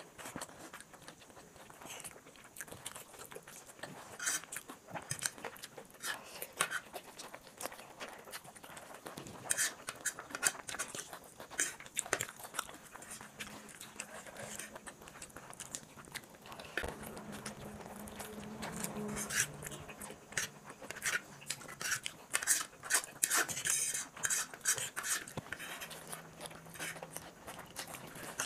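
Close-miked eating sounds: two people chewing mouthfuls of chow mein noodles, a steady run of wet mouth clicks and smacks, with the light scrape of forks on plates. The clicks grow busier in the second half.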